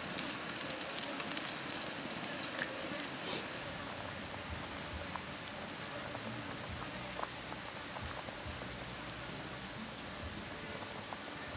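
A wood fire crackling under a wok of chicken soup simmering: an even hiss with scattered small pops, busier in the first few seconds.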